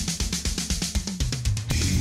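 Intro music: a fast drum-kit pattern of rapid kick, snare and cymbal hits, with fuller band instruments coming in near the end.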